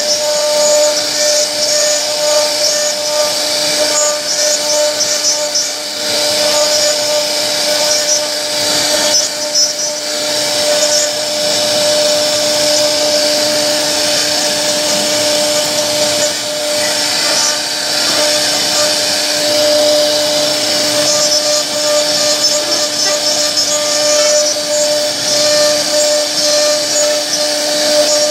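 CNC router spindle running with a steady whine while its bit cuts a carved relief into a wooden door panel, the rough rasp of the cutting rising and falling as the bit moves through the wood.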